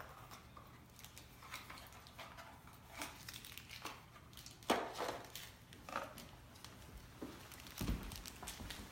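Intermittent crinkling and clicks of small plastic hardware bags and packaging being handled, with a few louder rustles about three, five and six seconds in and low thumps near the end.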